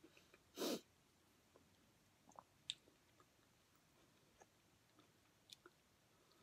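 Quiet chewing of a crispy chicken sandwich, with faint scattered mouth clicks. One brief louder noise comes about half a second in.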